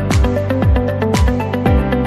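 Electronic dance music with a steady kick drum about twice a second under synth chords.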